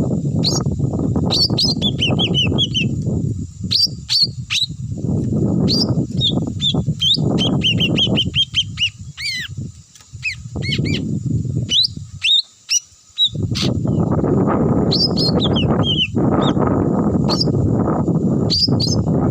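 A small bird chirps rapidly in short high notes, with quick falling runs of notes. Under it is a louder low rushing noise that comes and goes, dropping out briefly several times.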